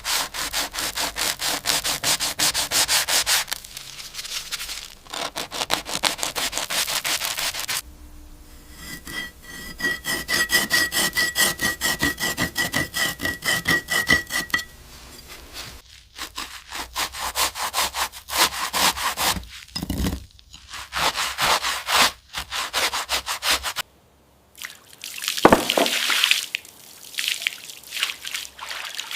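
Quick back-and-forth abrasive strokes scrubbing rust off an old hammer, in several runs with short pauses between. During one run a steady high squeak rides along with the strokes.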